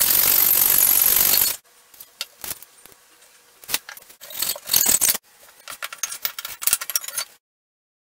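Small frame saw rasping through a wooden batten in a miter box, stopping abruptly about a second and a half in. Scattered light clicks and knocks follow as the wood and the saw are handled.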